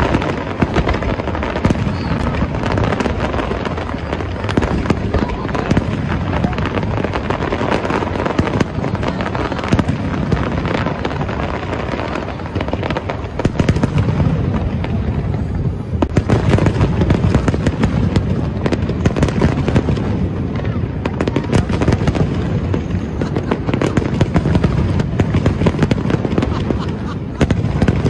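Fireworks finale: a dense, continuous barrage of aerial shell bursts and crackle, many bangs every second. The barrage thins a little around the middle, then builds louder again.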